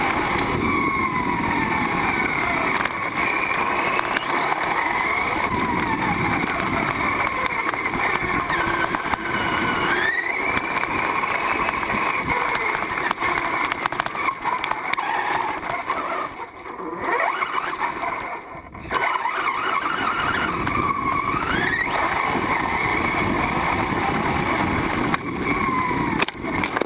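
Onboard sound of a Hong Nor X2CRT radio-controlled truggy driving over gravel and grass, its motor rising and falling in pitch as it speeds up and slows. The sound drops away briefly twice, about two thirds of the way in.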